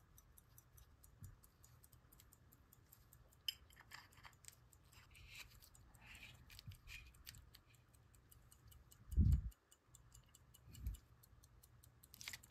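Waltham Vanguard pocket watch running with a faint, fast ticking. Small clicks and rustles come from gloved fingers handling the gold case and tools, with two dull low thumps a little past the middle as the hour hand is pressed on.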